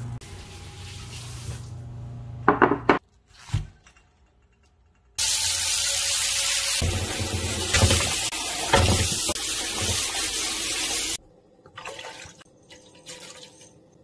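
Kitchen tap running into a pot of pork back ribs for about six seconds, splashing over the meat as it is rinsed, then shut off suddenly. A short clatter comes a few seconds before the water starts.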